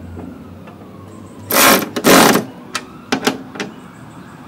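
Cordless electric ratchet tightening a skid-shoe carriage bolt on a two-stage snow blower: two short runs of the motor about a second and a half in, then a few quick clicks.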